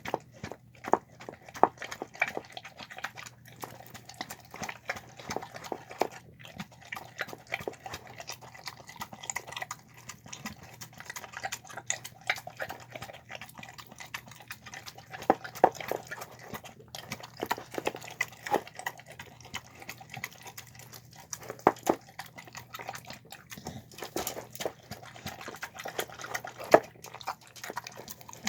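Mixed-breed pit bull and shar-pei dog eating a soft homemade meal of chicken, lentils, carrots and rice: a steady run of wet chewing and smacking, dense irregular clicks with no pause.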